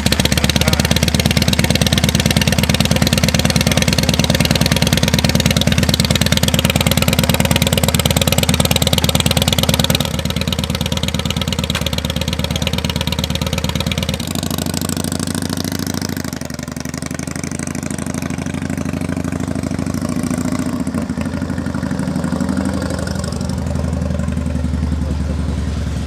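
A vehicle engine running steadily with a fast, even firing pulse. It drops in level about ten seconds in, changes again a few seconds later and fades away at the end.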